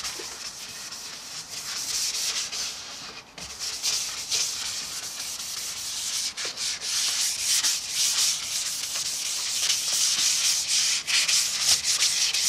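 Hand wet-sanding of grey primer on a VW Golf Mk5's front wing with 600-grit paper on a sanding block and a little water: a continuous scratchy hiss of quick back-and-forth strokes, growing louder about halfway through.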